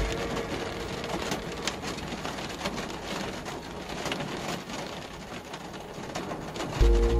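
Rain pattering on a moving car, with a low road rumble underneath. Near the end, music with a heavy bass comes in suddenly and louder.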